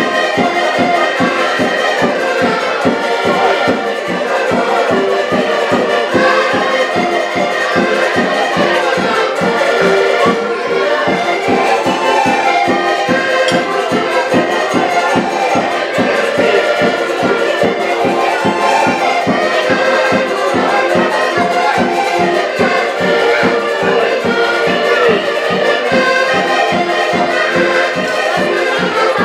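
An ensemble of button accordions playing a lively folk tune together, with a steady quick beat in the bass.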